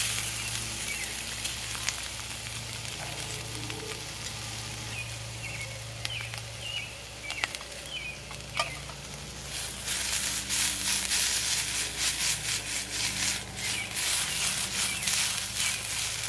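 Sliced false morel mushrooms sizzling in olive oil in a skillet on a small gas camp stove. About ten seconds in, the sizzle grows louder and turns to a dense crackle.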